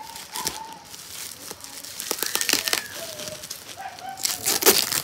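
Clear plastic wrapping and packing tape on a cardboard parcel crinkling and rustling as hands pull at them, in irregular bursts, loudest near the end.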